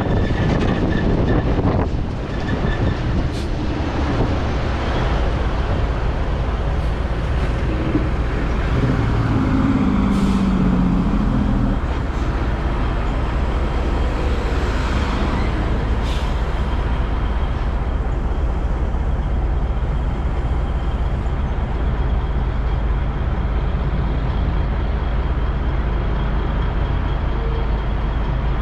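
Heavy diesel truck engine running steadily with a constant low hum.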